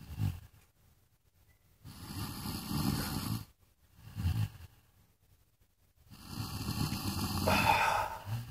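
Loud snoring in a regular cycle: a long snore of a couple of seconds, then a short snort-like breath, then a pause, repeating about every four seconds.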